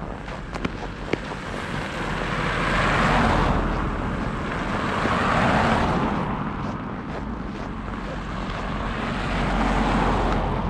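Cars passing on a snowy road, their tyre noise swelling and fading three times.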